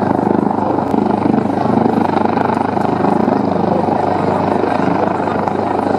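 A military helicopter hovering low, its rotor and engines running with a steady, loud noise.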